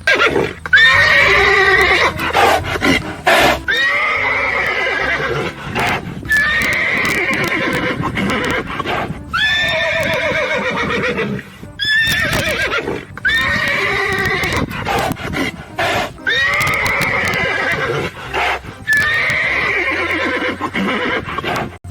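Horse whinnying again and again, about eight to ten neighs in a row. Each call starts high and falls away in a shaking, quavering whinny.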